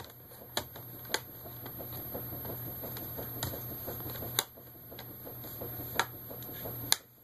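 Sharp plastic clicks and taps, about six at irregular intervals, as laptop screen parts are handled and pressed into place, over a low steady hum.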